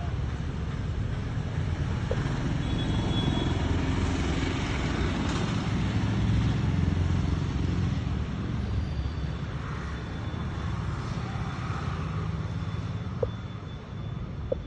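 Steady low rumble of motor traffic, swelling slightly in the middle and easing off near the end.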